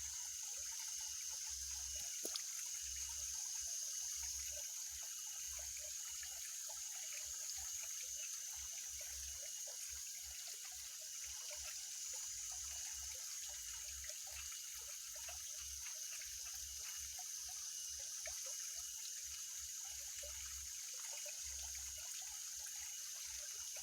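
Water trickling and dribbling at the edge of a fish pond, with many small scattered splashes and drips under a steady high-pitched hiss.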